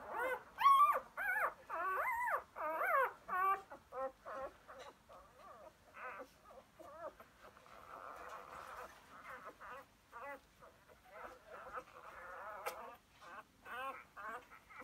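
Four-day-old Labrador puppies squeaking and whimpering. A quick run of high squeals that rise and fall comes in the first few seconds, followed by fainter, scattered whimpers, with a few louder squeaks again near the end.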